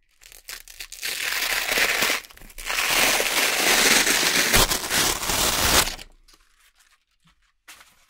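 Velcro hook-and-loop strip being peeled apart: a short crackly rip about a second in, then a longer, louder rip that stops about six seconds in, with a few faint crackles after.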